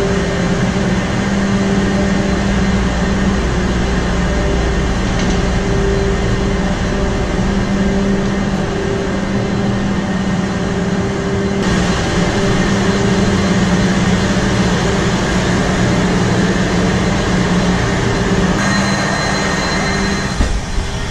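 Loud, steady engine-room machinery noise of a large bulk carrier at sea, its Wärtsilä RT-flex82T seven-cylinder two-stroke main engine running alongside pumps, with a steady hum throughout. Near the end the noise drops and turns duller.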